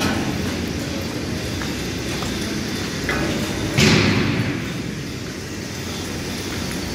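Steady machinery din of a factory hall, with one loud sudden bang about four seconds in that rings out and fades over about a second.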